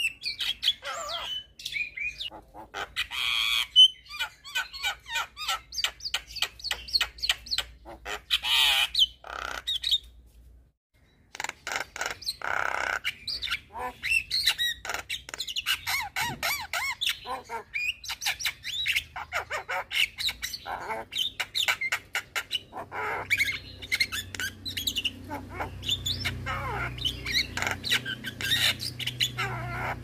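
Javan myna (jalak kebo) singing a loud, rapid chattering medley of harsh squawks, whistles and clicks, broken by a brief pause about ten seconds in. A faint low hum comes up underneath in the last third.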